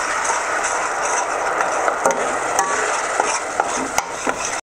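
Wire whisk stirring fast through a hot, bubbling kaymak-and-flour mixture in a stainless steel pot, the bubbling and scraping going on steadily with a few sharp metal clinks of the whisk on the pot. The sound stops abruptly near the end.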